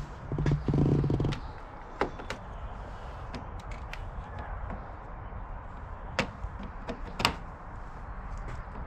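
Plastic push-pin rivets on a Jeep Wrangler grille being pried up with a flathead screwdriver: a short rasping scrape near the start, then a few sharp plastic clicks as the pins pop.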